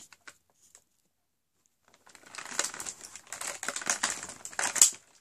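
Crinkling and rustling of an advent calendar's packaging as the next door is opened and the item inside is handled. It starts about two seconds in as a dense crackle of small clicks, with one sharp crackle near the end.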